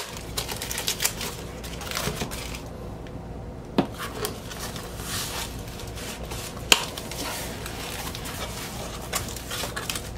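Cardboard record mailer being handled and pulled open, with rustling and scraping of cardboard and tape, and two sharp knocks, one about four seconds in and one nearly seven seconds in.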